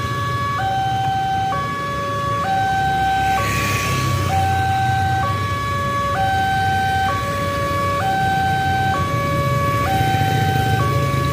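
A railway level-crossing warning alarm sounds a repeating high-low two-note electronic tone, changing note about once a second, which signals that a train is approaching. Underneath is a rumble of motorbike and car traffic, with one vehicle passing close about three and a half seconds in.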